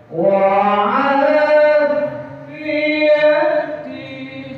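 A man's solo voice singing a slow, melodious religious chant. He swoops up into a long held note just after the start, and after a short dip begins a second held phrase.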